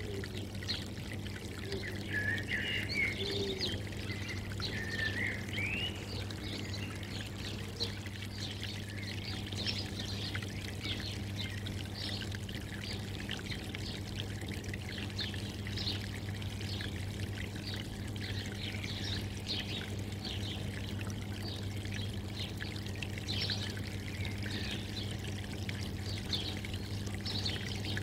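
Steady trickling, pouring water, with birds chirping, most clearly in the first few seconds, over a low steady hum.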